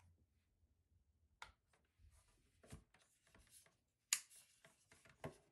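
Faint handling noises of a drone charger and its cables on a wooden table: cables rustling and plugs clicking, with a few sharper knocks, the loudest about four seconds in.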